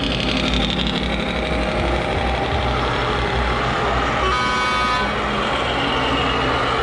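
Scale RC trucks driving past with a steady low simulated truck-engine rumble, with one short horn toot of under a second about four seconds in.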